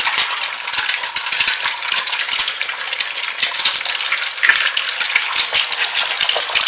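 Eggs frying in hot oil in a pan, sizzling with a dense crackle of fine spattering pops throughout.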